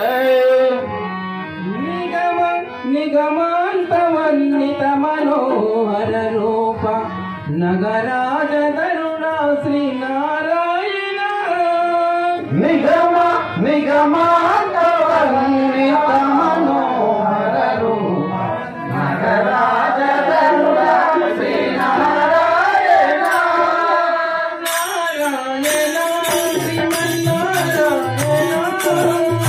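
Telugu devotional bhajan sung by a male lead voice, with tabla accompaniment. Near the end a fast, high rattling percussion joins in.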